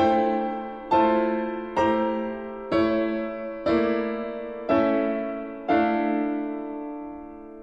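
Piano chords struck six times about a second apart, each left ringing and dying away, the last one fading out slowly.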